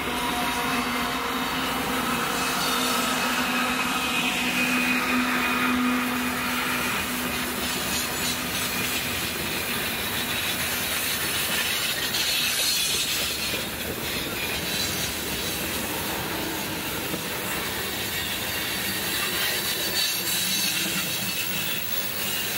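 Canadian Pacific diesel locomotive passing close by on a freight train, its engine drone fading over the first several seconds. Freight cars (covered hoppers, then tank cars) then roll past with steady wheel-on-rail noise and high wheel squeal on the curve.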